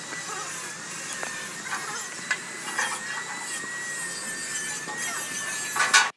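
Steel scraping, creaking and knocking as a long steel bar is levered against the plate of a large steel machine bucket, with a few sharp knocks along the way. A steady high whine runs underneath, and a loud clang comes near the end.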